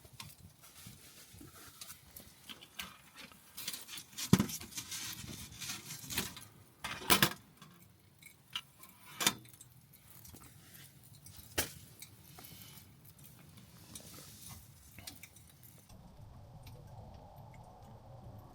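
Camping gear being handled: rustling with several sharp metallic clinks and knocks, the loudest about four and seven seconds in. A steadier low noise takes over near the end.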